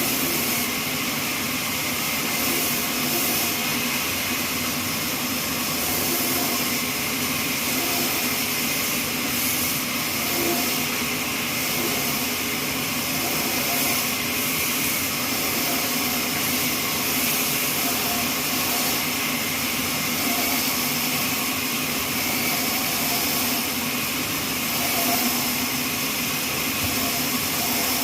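Horizontal trolley bandsaw mill running steadily, a continuous loud machine noise with a strong even hiss.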